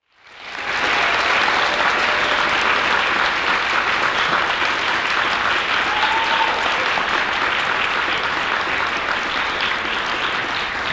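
Audience applauding, swelling up within the first second, holding steady, then easing off slightly near the end.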